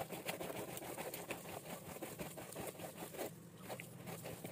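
Hands kneading a wet stuffing of minced chicken and chopped boiled liver in a bowl: a quick, irregular run of soft squelches and pats.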